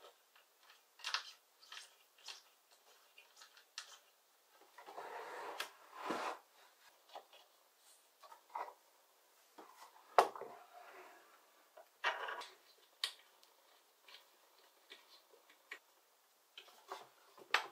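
Wooden jig parts and a board being handled on a workbench: scattered knocks and clicks of wood against wood, with a couple of sliding, rubbing scrapes and one sharper knock about ten seconds in.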